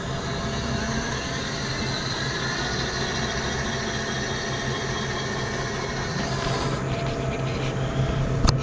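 Battery-powered Mean Green ride-on mower humming steadily under power, a constant electric whine over a hiss, with a sharp click near the end.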